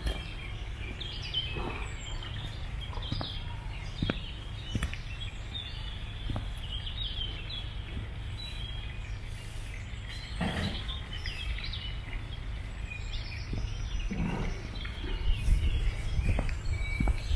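Several small birds chirping and singing in short high notes over a steady low rumble, with a couple of soft thuds about ten and fourteen seconds in.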